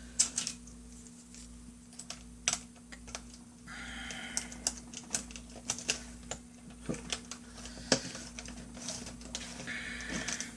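Plastic laptop parts being handled and pressed into place: scattered light clicks and taps, with a short rubbing noise about four seconds in and again near the end.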